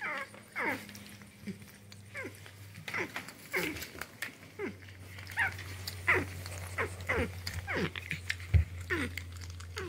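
North American porcupine giving a long string of short, high whining cries, each falling in pitch, one after another every half second to a second, over a low steady hum.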